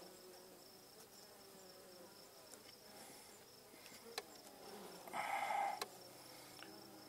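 Honeybees buzzing over an open hive, a faint steady hum, with one bee buzzing louder for about a second, about five seconds in. A sharp light click a little after four seconds.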